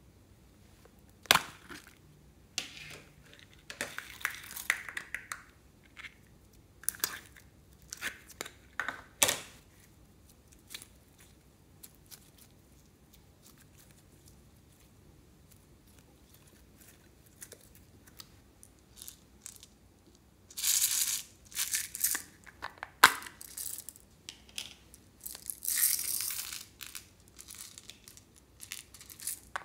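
Handling plastic slime tubs and sticky slime: scattered clicks, snaps and peeling noises in the first third, a quiet stretch while slime is stretched, then bursts of rustling, crackling noise in the last third.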